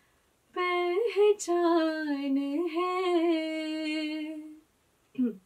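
A young woman singing unaccompanied in Hindi, holding one long ornamented note on the word "pehchaan" that bends and wavers and then fades away, starting about half a second in. A short falling vocal glide follows near the end.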